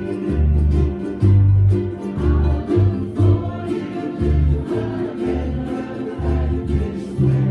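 Music: a folk tune played on strummed string instruments over a bass line that changes note about once a second.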